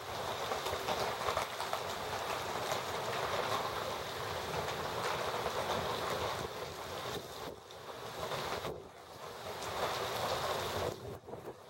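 Thunderstorm wind and downpour: an even rushing noise that swells and eases in gusts and drops away briefly twice in the second half.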